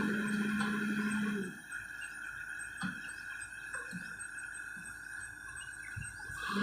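Excavator engine running with a steady hum that drops away about a second and a half in, leaving a quieter steady tone and a few faint knocks.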